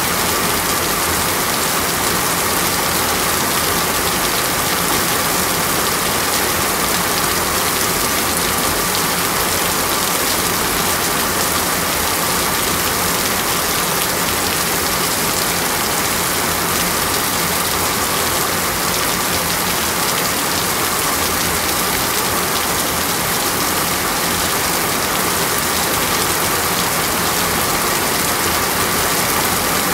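Rain falling steadily, an even unbroken hiss.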